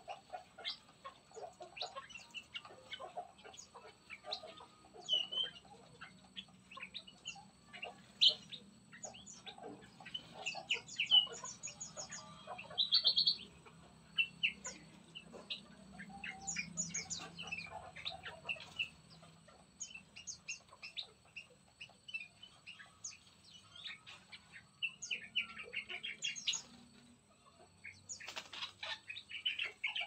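Several songbirds in an aviary chirping and calling, with scattered short chirps and whistles. A brief loud rapid trill comes a little before the halfway point, and a busy run of calls comes near the end.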